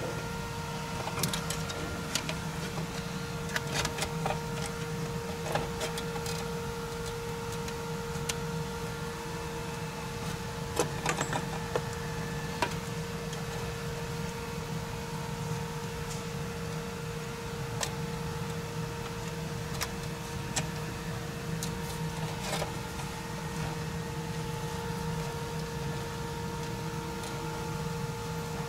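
A steady mechanical hum runs throughout, with scattered sharp clicks and handling noises as RCA plugs and a wiring harness are pushed onto the back of an aftermarket car stereo head unit.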